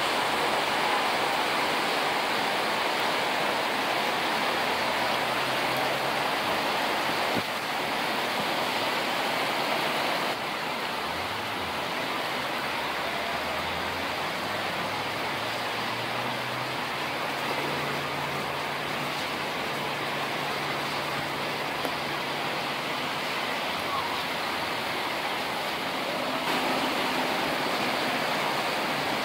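Heavy rain falling steadily over the city, an even hiss with no break.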